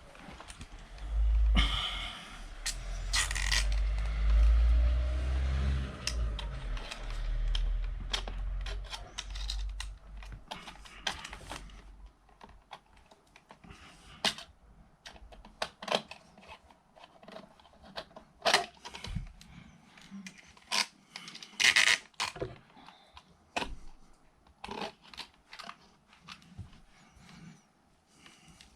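Close handling of a socket or switch faceplate and its small screws: rubbing and low bumping for the first ten seconds or so, then a run of sharp, irregular clicks and small metal taps.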